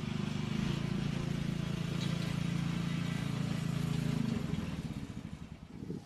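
An engine running steadily at a constant pitch, fading out about four and a half seconds in. A few soft knocks follow near the end.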